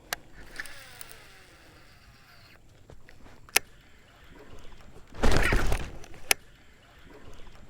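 A bass blowing up on a topwater Whopper Plopper lure: one loud splash about five seconds in, with a few sharp clicks before and after it.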